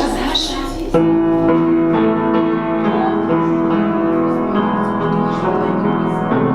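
Piano music that starts suddenly about a second in, a tune played over steady held chords.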